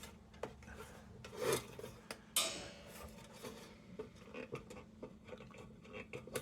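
Metal parts of a Dietz No. 2 Blizzard lantern scraping and clicking against each other as a part is forced into a tight fit, with a sharp scrape about two and a half seconds in.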